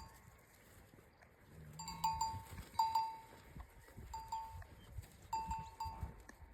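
Cattle neck bells clanging irregularly as the herd grazes: short ringing strikes that fade quickly, often two or three in quick succession. A short low moo sounds about two seconds in.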